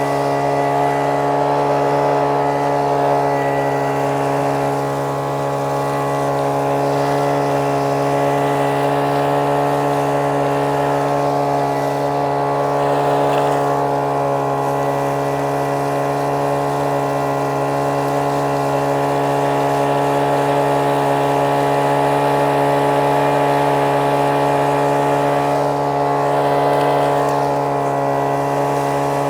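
Small gas engine of a prospecting vac pac running steadily at constant speed while it sucks up desert gravel.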